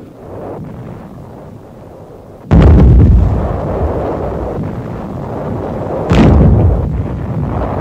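Two heavy explosions from artillery shells bursting, about three and a half seconds apart. Each is a sudden blast that trails off into a long low rumble.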